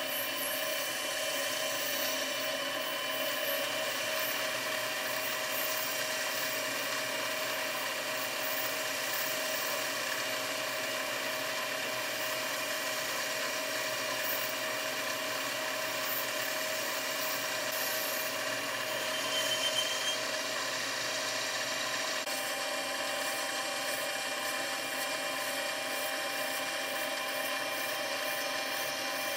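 Harbor Freight 7x10 mini lathe running with its change-gear cover off, its motor and gears giving a steady whine of several held tones while a boring bar cuts into a PVC pipe. About two-thirds of the way through there is a brief louder moment with a short high tone.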